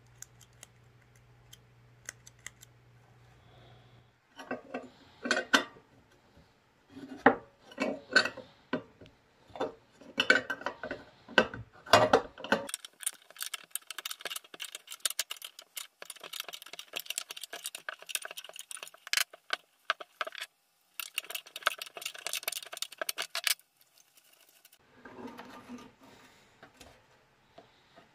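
Hands handling a vintage steel lamp base and its old wiring and switch block: knocks and metallic clatter start about four seconds in. A long stretch of rapid scraping and rattling follows, then lighter handling near the end.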